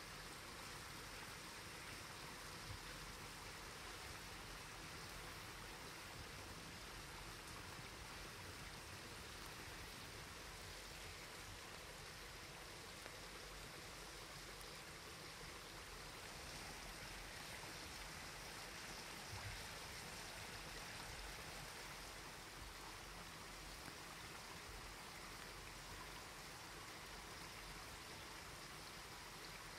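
Faint, steady rushing hiss like running water, with a few faint ticks.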